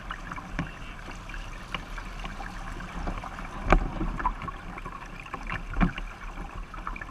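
Water rushing along the hull of an International 505 dinghy sailing fast, with a few sharp slaps of chop against the bow, the loudest about halfway through and again near the end.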